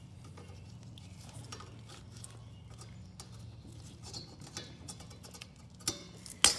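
Small metallic clicks and scrapes of a rusty exhaust spring being worked by hand at an ATV's exhaust pipe joint. Near the end come two sharp snaps, the second one loud, as the spring comes off.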